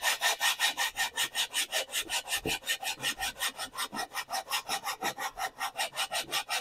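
A cylinder jug being lapped onto a Porsche 912E Type 4 cylinder head with grinding compound: a gritty scraping of metal on metal as it is twisted back and forth in quick, even strokes, about six a second. The lapping grinds the cylinder's sealing lip and the head's seat into a matching surface.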